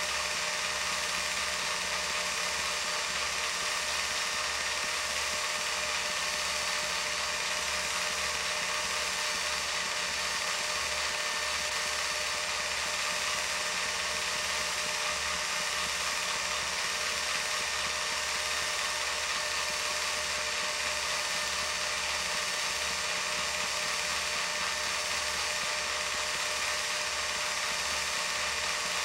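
A home-movie film projector running: a steady motor whir with a fast, fluttering low pulse under a constant hiss.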